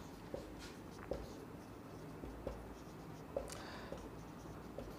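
Marker pen writing on a whiteboard: faint strokes with a few short taps as letters are made.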